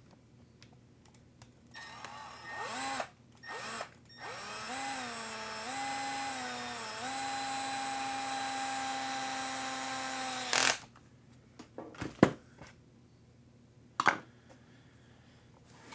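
Cordless drill/driver whirring in a few short bursts, then one long run of about six seconds. Its pitch dips and recovers in steps, then holds steady before it cuts off. A few sharp clicks follow near the end.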